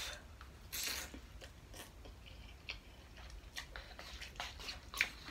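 Someone eating instant spicy shrimp ramen: two short noodle slurps, at the start and about a second in, then quiet chewing with a few light clicks.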